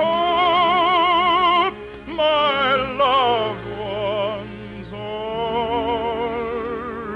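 Male baritone singing long, held notes with vibrato over an orchestra in an operetta song. It holds a loud note, drops through a falling phrase about two seconds in, then sings softer held notes through the second half.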